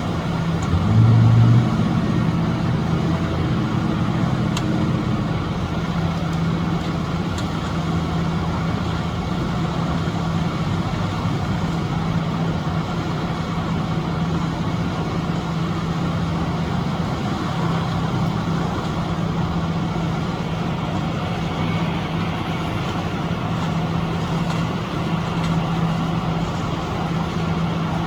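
Construction machinery's engine running steadily with a low, even hum, briefly louder about a second in.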